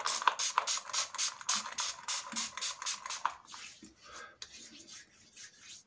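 Merkur 34 G HD safety razor with a Wilkinson Sword blade scraping through lathered stubble in rapid short strokes, several a second. After about three seconds the strokes turn fainter and sparser.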